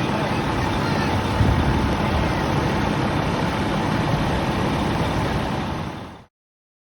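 Fire engine's diesel engine idling with a steady low rumble, cutting off abruptly near the end.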